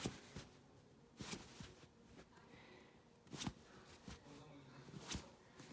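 Quiet room tone with four brief, soft rustles spread across a few seconds.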